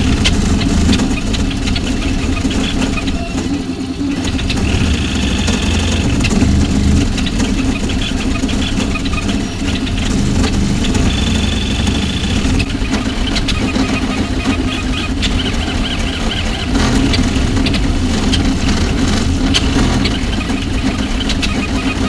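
VzBoT high-speed 3D printer printing: its stepper motors buzz under a steady low hum as the toolhead makes rapid moves. A high whine comes and goes in stretches of a second or two, with many small ticks.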